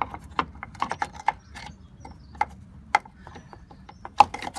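VW T4 sliding door's metal bottom roller bracket being pushed along its lower guide track by hand, giving irregular metallic clicks, knocks and light scraping.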